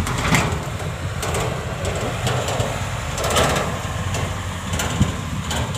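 A small engine running steadily in the background, with a few short rustling noises over it.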